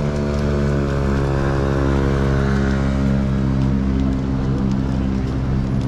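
A pickup truck's engine running with a steady pitched drone, rising in pitch briefly at the start and then holding level, over general street traffic noise.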